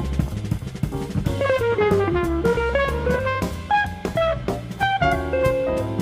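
Small jazz group's recording: drum kit with snare and bass-drum strikes, a bass line, and a single-note melody moving in quick steps. An electric guitar plays the transcribed solo along with it.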